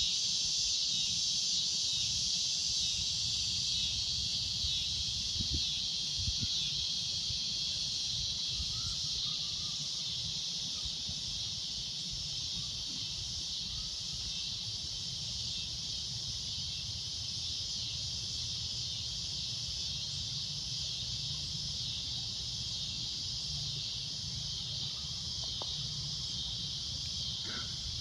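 Cicadas droning in a steady, shrill chorus that eases slightly in loudness over the stretch, with a low rumble underneath.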